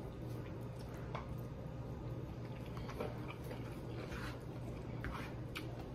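A person chewing a mouthful of chicken, vegetables and rice, with soft wet mouth sounds and a few faint short clicks, over a steady low hum.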